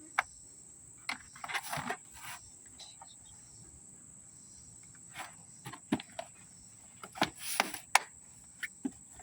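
Crickets chirring in a steady, high, even tone, with scattered light clicks and knocks from handling things.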